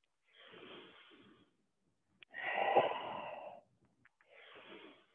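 A woman breathing audibly in time with a yoga movement: three separate breaths, the middle one loudest with a sharp start, with dead silence between them.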